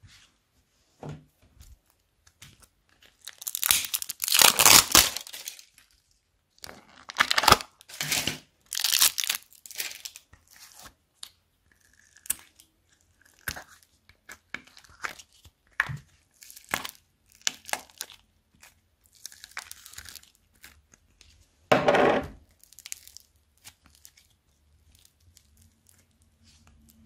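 Slime and soft modelling clay being squeezed, stretched and pulled apart by hand over a bowl of foam beads: irregular sticky tearing and crackling, with louder bursts about four seconds in, around eight to nine seconds in, and again near twenty-two seconds.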